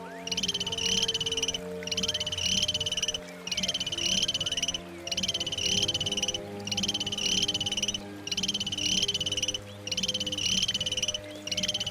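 A rapid, high-pitched pulsed trill call, each about a second and a half long, repeated steadily with short gaps, about seven times. Steady low hum tones run underneath.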